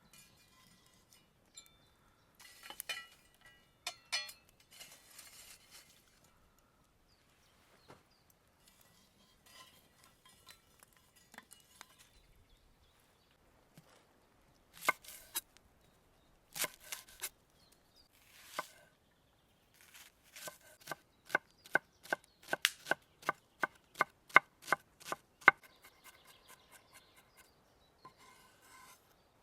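Knife chopping on a cutting board: scattered knocks and clinks at first, then a long steady run of quick chops, about three a second, in the second half.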